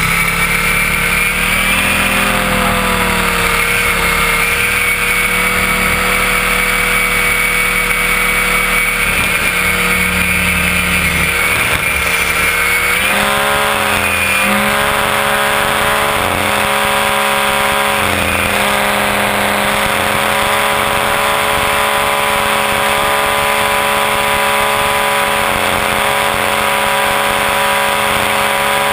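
Onboard sound of an Align T-Rex 500 electric RC helicopter in flight: a steady whine from the motor, gears and spinning rotor. The pitch dips and recovers briefly a few times, most clearly about halfway through.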